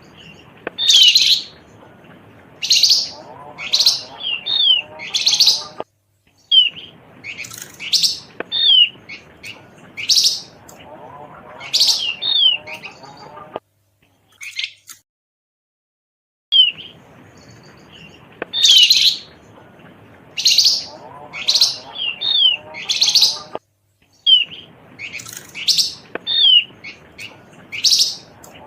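Looped bird-lure (pikat) recording of Javan grey-throated white-eye (opior jawa) and flamboyan calls: clusters of sharp, high, downward-sliding chirps over a faint hiss. The same sequence plays over and over, cut by brief silent gaps.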